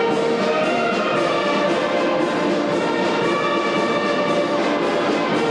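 Orchestral music with brass playing at a steady level, with sustained notes.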